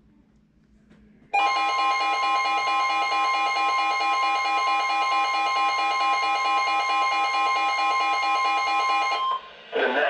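NOAA weather radio sounding its emergency alert tone, a loud steady electronic tone for about eight seconds, signalling an incoming EAS warning. It cuts off abruptly and the broadcast voice begins right at the end.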